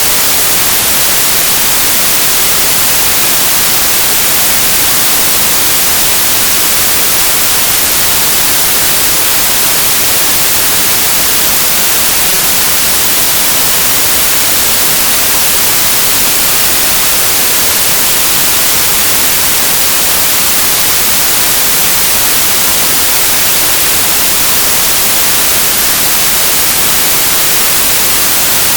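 Loud, steady hiss of static, even and unchanging throughout, strongest in the high treble.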